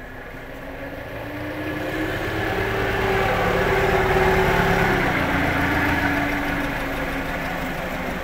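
Forklift motor running under load, rising in pitch and loudness over about three seconds, then easing back down and running steadily.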